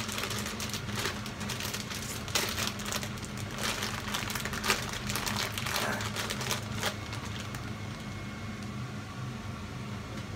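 Plastic bag of frozen fries crinkling and rustling in the hands, in irregular crackles for about the first seven seconds. A steady low hum runs underneath.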